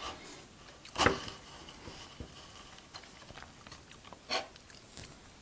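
Kitchen knife cutting and breaking into a block of crumbly white cashew halva on a wooden board: a few short, dry crunches, the loudest about a second in and another about four seconds in, with faint crumbling ticks between.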